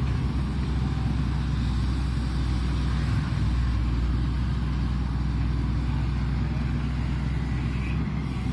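Diesel engine of a Shantui ME210LC-1 excavator running with a steady low drone.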